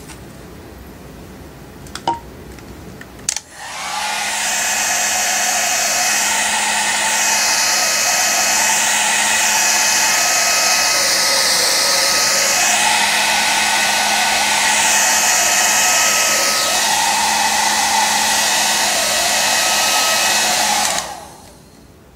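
Small handheld hair dryer starts about three seconds in and runs steadily, a rush of air over a steady motor hum and whine. The air noise shifts as the dryer is moved about, then it cuts off suddenly near the end.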